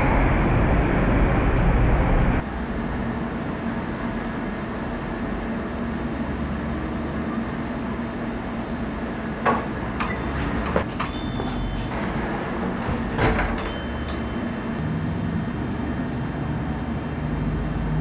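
Steady street traffic noise that drops away suddenly about two seconds in to a quieter, steady background, with a few short light clicks and taps around the middle.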